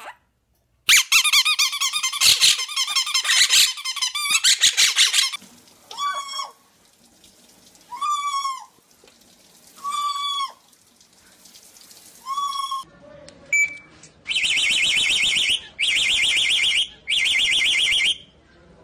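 Pet birds, parrots among them, calling: a loud burst of rapid squawking chatter, then four rising-and-falling squawks about two seconds apart, then three long, steady, high-pitched calls near the end.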